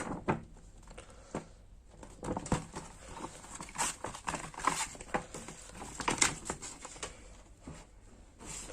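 Irregular rustling and soft taps of paper being handled as the pages of a printed quick start manual are turned.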